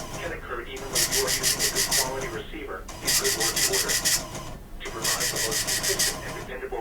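Emergency Alert System SAME data bursts from a NOAA Weather Radio broadcast: harsh, rasping digital buzzes about a second long, repeating roughly every two seconds, over a faint voice.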